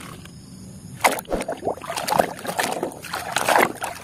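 Muddy, foamy water sloshing and splashing in a basin as a plastic toy truck is swished through it by hand. The splashing starts about a second in and goes in irregular bursts of strokes.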